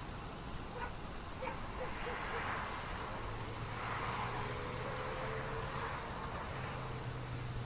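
Mountaintop outdoor ambience: wind rustling in two gentle swells, with a few faint short ticks early on. A low steady drone comes in about halfway through.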